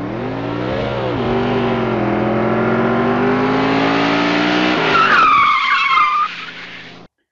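Car engine revving, with a quick blip about a second in and then a slowly rising note. About five seconds in, tyres start squealing with a high, wavering screech, as in a burnout. It fades and cuts off shortly before the end.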